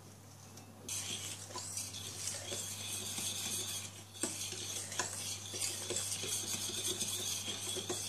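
A spoon stirring rice and milk in a stainless steel saucepan, scraping and clicking against the pan. The stirring starts about a second in, with a steady scraping hiss and irregular clinks.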